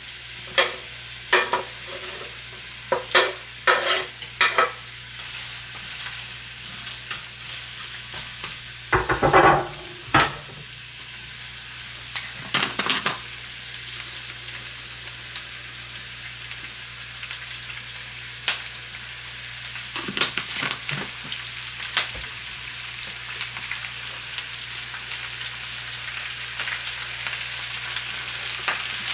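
Red onions sizzling in avocado oil in a cast iron skillet, the hiss growing gradually louder. Knocks and scrapes of a utensil stirring them against the pan come mostly in the first half, the loudest about nine seconds in.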